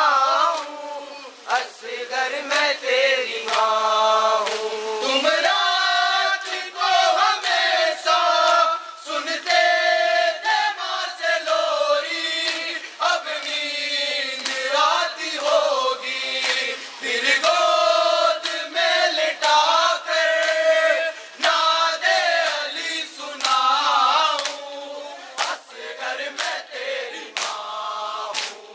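A crowd of men chanting a noha, a Muharram lament, in chorus. Sharp slaps of chest-beating (matam) are struck along with it at a quick, uneven beat.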